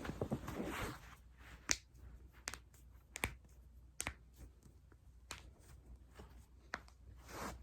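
A person's joints cracking: a series of sharp single pops spaced about a second apart, with rustling body movement in the first second and again near the end.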